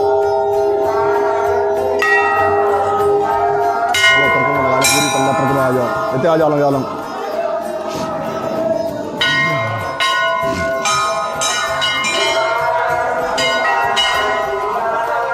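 Hindu temple bells struck again and again at an irregular pace, each strike adding new ringing tones over those still sounding.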